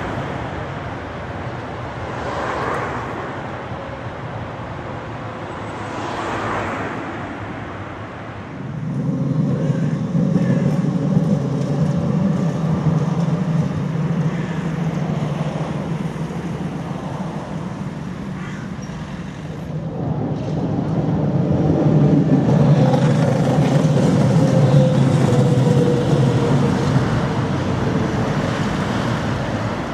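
City road traffic: cars and a tram driving past. Soft swells of noise come first, then a steady low rumble sets in about nine seconds in. It is loudest near the end, with a faint whine rising and falling.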